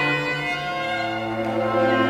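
String quartet of two violins, viola and cello playing classical music in sustained, bowed chords, with the cello holding a low note underneath. The playing eases a little in the first half and swells again near the end.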